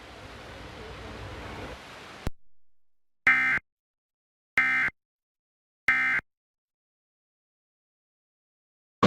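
Emergency Alert System end-of-message signal: three short, identical bursts of digital data tone, about a second and a quarter apart, marking the end of the alert. Before them, faint hiss cuts off with a soft thump.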